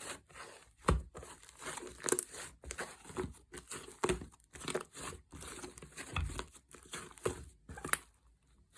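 Fluffy slime being squished and pulled apart by hand, giving irregular crackles and tearing sounds with the odd dull squelch.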